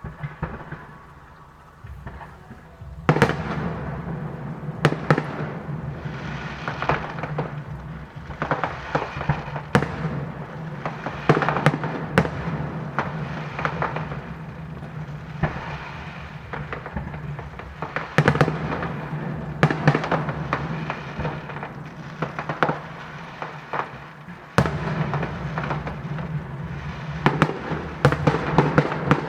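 Fireworks display: a quick, dense run of bangs and crackling bursts that starts about three seconds in and goes on without a break, growing louder near the end.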